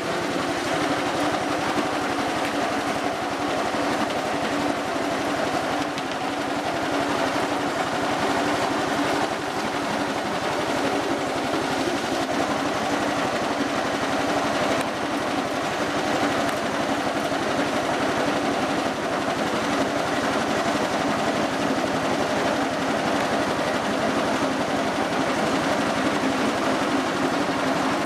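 Small petrol engine running steadily at constant speed, driving a soybean dehulling machine as soaked soybeans are fed through it, with water splashing from a spray pipe onto the hopper.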